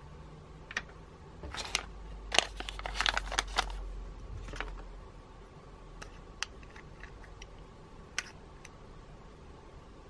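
Small plastic pots of glitter being handled: sharp clicks and taps, a busy run of them about two to four seconds in, then scattered single clicks as a pot's lid is opened.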